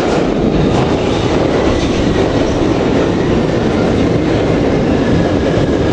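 London Underground Victoria line train running into the platform: a loud, steady rumble of wheels on rail. Near the end a thin whine slowly falls in pitch as the train slows.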